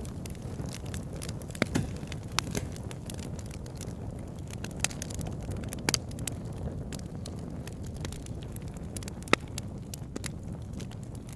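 Open fire burning: a steady low rumble of flames with scattered sharp crackles and pops, a few of them louder than the rest.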